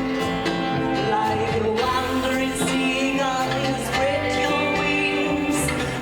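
Live rockabilly band playing a song with singing, drums and guitar.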